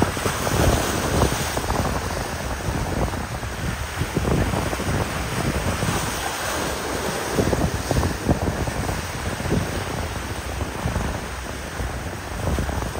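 Gusting wind buffeting the microphone over choppy inlet water, with waves rushing and breaking.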